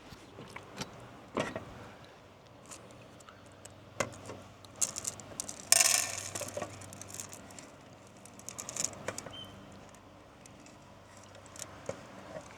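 Handling noise: scattered light clicks and knocks, with a brief rattling rustle about six seconds in.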